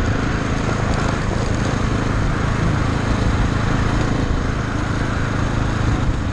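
KTM 690 Enduro's single-cylinder engine running steadily while riding on a gravel track, heard from the bike with heavy wind rush over the microphone.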